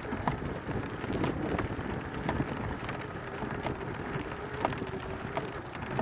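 Battery-powered off-road bike riding over a dirt mountain trail: tyres rolling and rattling over stones, with frequent small clicks and knocks, and wind buffeting the microphone. A faint steady whine comes in about halfway through.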